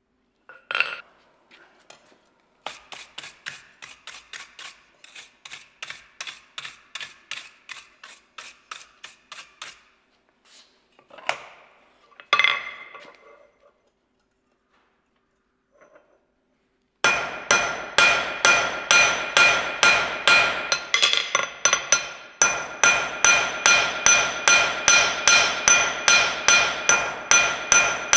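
Blacksmith's hammer striking a hot steel bar on an anvil, in steady blows about three a second. A quieter run of blows comes first, then a pause with a couple of clanks. After that comes a louder run of blows with the anvil ringing under each one.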